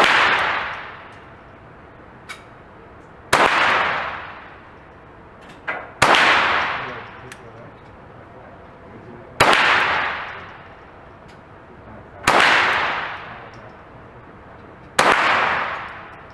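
Six single shots from a CBC 7022 .22 LR semi-automatic rifle, fired about three seconds apart, each trailing off in a long echo. Faint small clicks fall between some of the shots.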